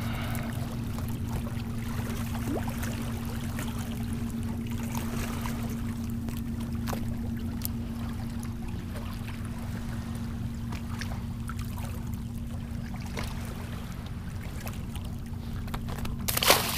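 Small waves lapping and trickling among shoreline rocks over a steady low rumble and hum, with scattered faint ticks. A short, louder burst of noise comes near the end.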